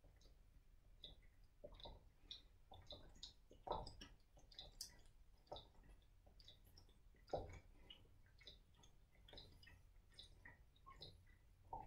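Faint gulping and swallowing of water drunk from a tipped-up plastic bottle: a soft gulp about every two seconds, with small wet mouth and bottle clicks in between.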